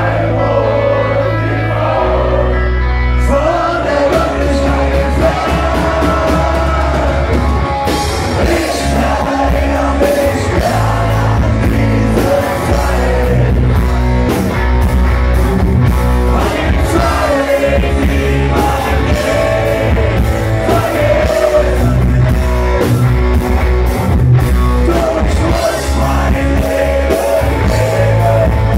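Live rock band playing: a male singer over electric guitar, bass and drums, loud and continuous.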